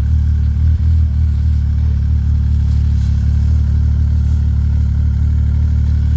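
Snowmobile engine running at a steady speed, a loud low drone that holds one pitch throughout.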